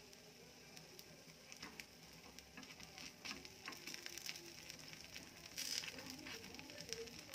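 Oil sizzling and crackling faintly as rice-batter dumplings fry in a multi-cavity paniyaram (appe) pan, with scattered light clicks from a spatula turning them. A brief louder hiss comes about five and a half seconds in.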